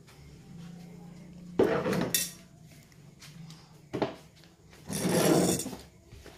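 Handling of plastic furniture and a dish: a loud knock about a second and a half in, as of a plate set down on a plastic table, then a small plastic chair scraped across a tiled floor for about a second.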